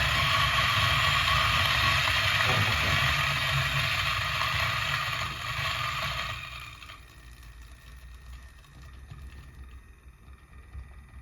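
DF64V single-dose coffee grinder running as it grinds a dose of beans, a steady loud whirr with a gritty edge. It falls away about six seconds in, leaving only faint handling noise.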